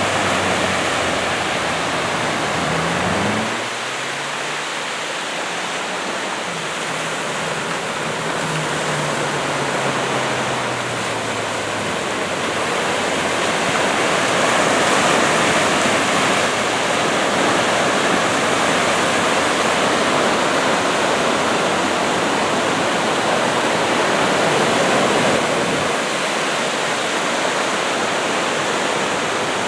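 Surf breaking and washing onto a sandy beach: a loud, continuous rush that swells and eases over several seconds. A low droning hum slides down in pitch and fades out in the first ten seconds or so.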